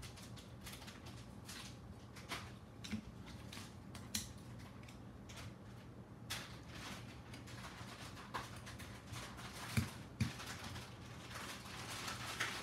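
Handling noise of a drone frame being closed up: scattered light clicks and taps of the carbon top plate and parts being fitted together by hand, with some rustling, over a steady low hum.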